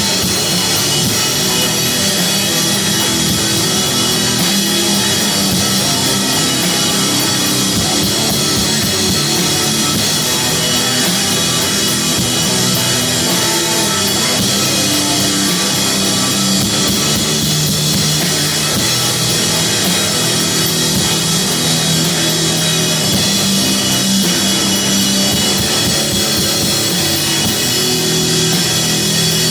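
Live heavy rock band playing loud and steady: distorted guitars holding long low notes over a drum kit.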